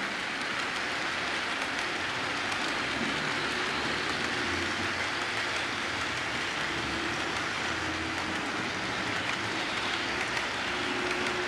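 HO scale model freight cars rolling along the track, their wheels making a steady rushing hiss.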